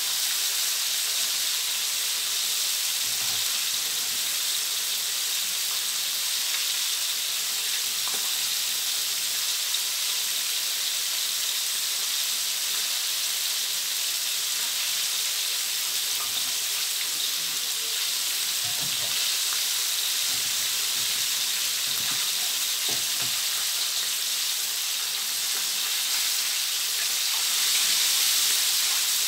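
Herb-marinated chicken wings deep-frying in hot oil in a wok: a steady, even sizzle.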